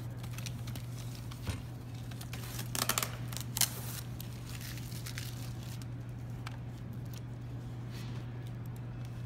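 Packaging being handled: short rustling and tearing noises, loudest about three seconds in, with a few light clicks, over a steady low hum.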